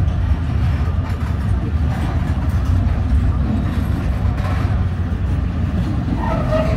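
Container wagons of a freight train rolling past, a steady low rumble of steel wheels on the rails.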